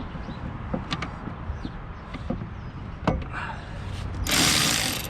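Light clicks and knocks of metal brake parts being handled as a brake caliper is worked on. Near the end comes a short, loud rush of noise.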